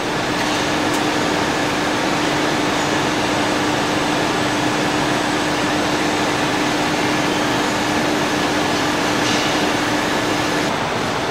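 Steady rushing air noise of a car-body paint shop's ventilation and machinery, with a steady hum that cuts off near the end.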